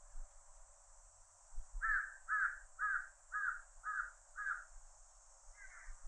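A crow cawing: a run of six calls at about two a second starting about two seconds in, then one more near the end, over a steady high drone of cicadas.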